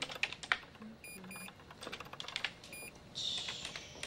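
Typing on a computer keyboard: irregular clicking keystrokes, with three short electronic beeps from the computer, two close together about a second in and one near the three-second mark, and a brief hiss shortly after.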